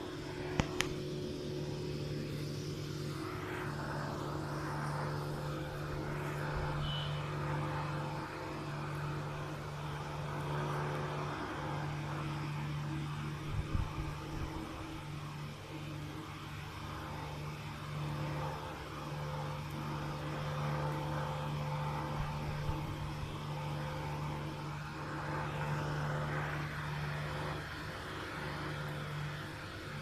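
Steady low machine hum of a running motor, holding several even tones. It carries a brief high chirp about seven seconds in and a few soft knocks around fourteen seconds.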